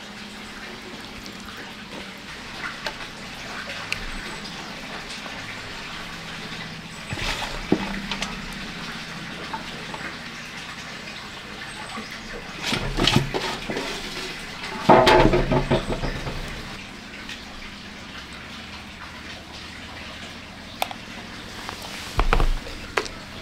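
Wet squelching and rustling of hands rubbing chopped turmeric and spices into raw fish pieces in a metal pot, over a steady hiss, with a few louder handling noises, the loudest about fifteen seconds in, and a short thump near the end.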